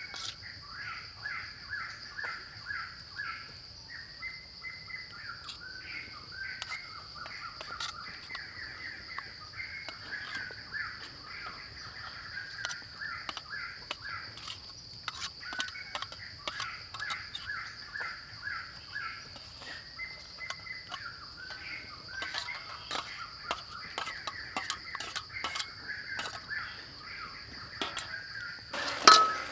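Outdoor ambience: birds calling in series of short repeated notes over a steady high insect drone. Light clicks and clinks come from food being mixed and handled in a metal wok, with one loud knock near the end.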